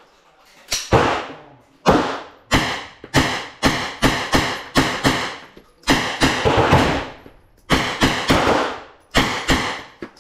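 Gunshots from semi-automatic firearms: more than a dozen shots fired in quick strings, each followed by a short echo.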